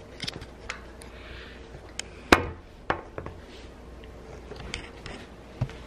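A few light knocks and clicks of a handheld camera being handled and turned around, the sharpest one a little over two seconds in, against a quiet room background.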